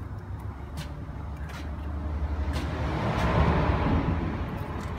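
Traffic rumble from a vehicle crossing the bridge overhead, building to a peak about three and a half seconds in and then easing off.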